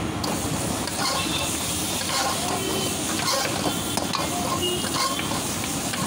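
Noodles and vegetables being stir-fried in a large wok: steady frying sizzle, with a metal ladle scraping and clanking against the wok as the food is tossed.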